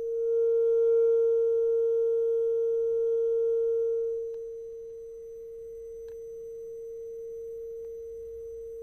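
Glass-tube thermoacoustic engine, its hot end heated by an induction heater, sounding a steady pure humming tone. About four seconds in the tone weakens and loses its overtones, as the ceramic part moves away from the heat exchanger and breaks the sound.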